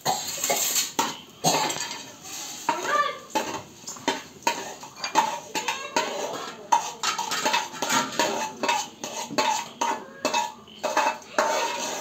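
Metal pots, vessels and utensils clattering and knocking against each other, many quick irregular knocks, some of them ringing briefly.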